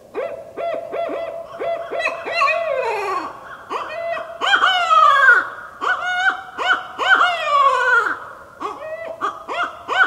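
Barred owl calling loudly: a quick run of short hoots, then long, overlapping wails that rise and slide down in pitch, with more short hoots near the end.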